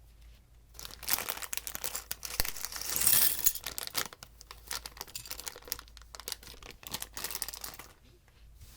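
Crinkly plastic packaging of a small Lego set handled and torn open: a dense run of crackling and tearing, loudest about three seconds in.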